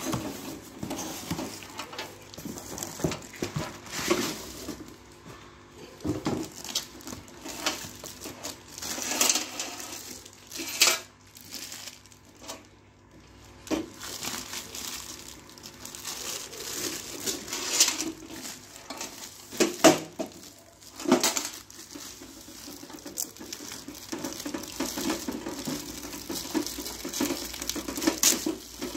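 Clear plastic wrapping crinkling and tearing as it is pulled off a black metal letter box, with cardboard carton rustling and a few sharp knocks as the box is handled.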